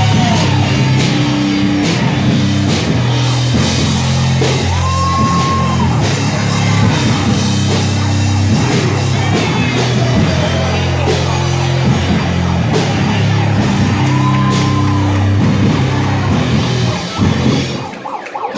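Rock entrance music with drums and a heavy bass line, played loud over the venue's sound system. It cuts out about seventeen seconds in.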